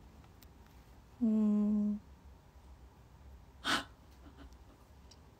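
A woman's short hummed "mm" held on one pitch for under a second, then about two seconds later a single quick puff of breath.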